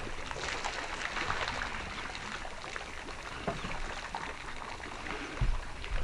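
Water pouring and dripping as an African elephant drinks in a shallow waterhole, the water falling from its mouth and trunk into the pool. A dull low thump about five and a half seconds in.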